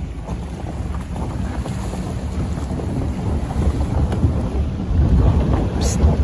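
Wind buffeting the microphone: a heavy, uneven rumble with hiss above it, and a brief high hiss near the end.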